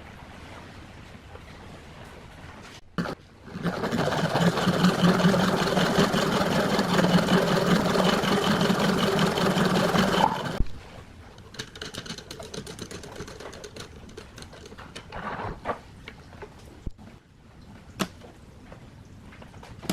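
A small electric motor runs steadily at one constant pitch for about seven seconds, starting and cutting off abruptly. Scattered clicks and knocks come before and after it.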